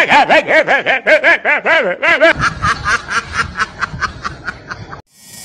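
A man laughing loudly in quick pitched pulses that rise and fall, for about two seconds. Then a softer, quick, even patter over a low hum.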